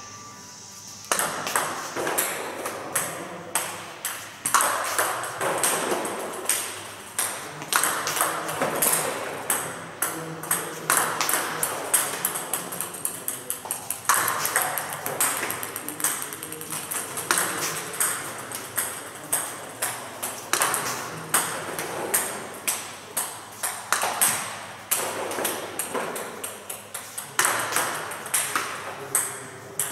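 Table tennis serves repeated one after another: each ball clicks off the paddle and ticks on the table, followed by a run of fading bounces, a new serve every few seconds.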